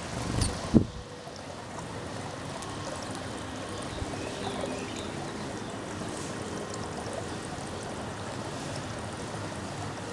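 Steady rushing background noise, like running water, with one brief loud thump under a second in.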